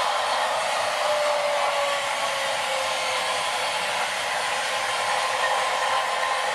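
Sound-equipped model locomotive standing and running its stationary sound: a steady fan-like hiss with faint tones, played through the small onboard speaker, which carries no bass. A faint tone slides slightly down about a second in.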